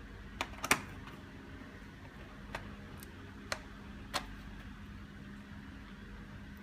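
Sharp plastic and metal clicks from laptop parts and tools being handled: five in all, the loudest about a second in, over a steady low hum.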